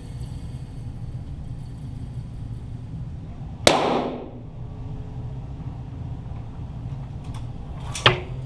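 .22 Walther GSP target pistol shots heard from down by the targets, two of them: the first about three and a half seconds in with a lingering ring, the second a sharper crack near the end.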